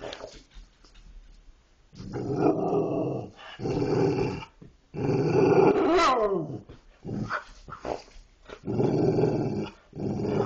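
Dogs growling back and forth in long, drawn-out rumbling bouts, the growly 'talking' of dogs at play. About six seconds in, one growl turns into a cry that slides down in pitch.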